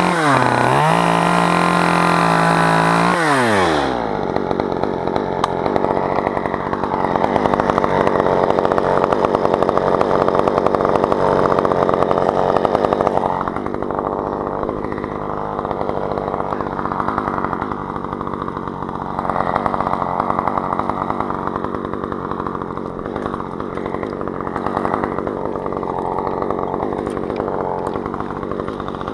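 Chainsaw running at high revs, its pitch dipping briefly about a second in. From about four seconds in it drops to a lower, rougher note under load as it cuts through spruce wood.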